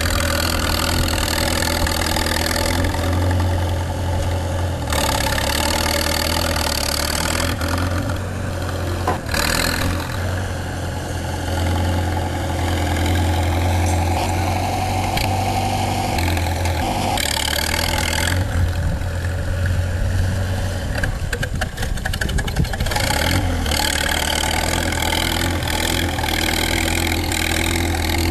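An engine running steadily with a strong low hum, under a shifting layer of noise.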